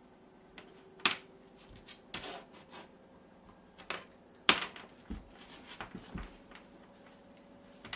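Shiba Inu puppy batting its chew bone about on a wooden floor: irregular sharp clacks as the bone hits the floor, the loudest about four and a half seconds in, followed by a couple of dull thumps.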